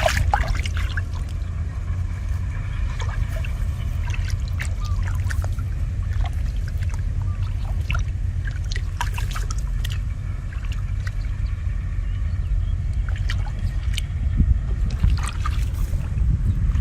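Shallow water in a flooded rice field splashing and trickling in many small irregular splashes, over a steady low rumble.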